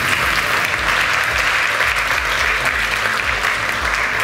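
Audience applauding, a steady, dense clapping that holds throughout.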